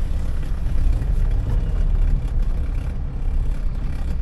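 Steady low rumble of a car's engine and tyres, heard from inside the cabin as the car makes a tight turn in traffic.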